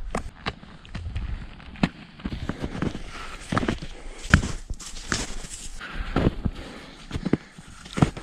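Ski-touring steps uphill in snow: irregular clicks and knocks of touring bindings and ski poles, over the scrape of skis sliding on snow.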